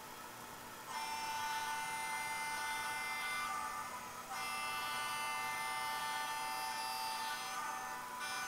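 Model diesel horn from an MRC 1666 sound decoder, played through a tiny speaker in an N-scale boxcar, sounding in long sustained blasts. The first starts about a second in, another follows at about four and a half seconds, and a third near the end. The tone is high and thin with no bass, over a faint steady hiss.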